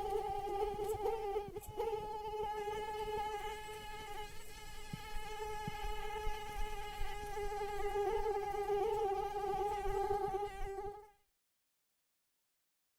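Mosquito wingbeat whine: a steady high hum with a slight waver, which fades out about eleven seconds in and is followed by dead silence.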